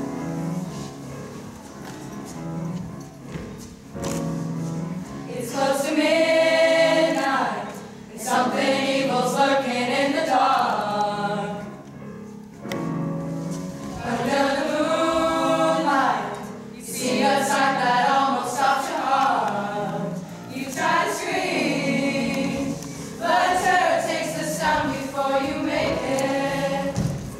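Music with singing: long held vocal phrases of a few seconds each, separated by short breaks, over a low steady accompaniment.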